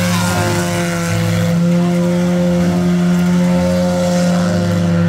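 Banger race car engines running hard at steady high revs, a loud continuous engine note.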